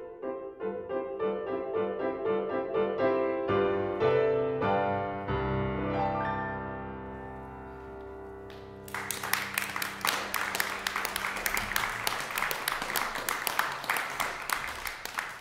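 Grand piano playing a quick run of notes that ends on a final chord, held for about three seconds as it dies away. About nine seconds in, audience applause begins and keeps going.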